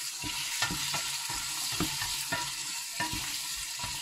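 Onions and carrots sizzling in hot olive oil in a stainless steel stockpot, stirred with a wooden spoon that knocks and scrapes against the pot about twice a second.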